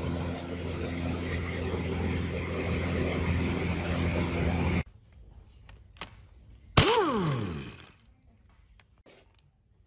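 A steady mechanical hum stops abruptly about five seconds in, and a few light clicks follow. Near the end a pneumatic wrench runs a bolt on the engine's cover plate in one short, loud burst, and its air motor winds down with a falling whine over about a second.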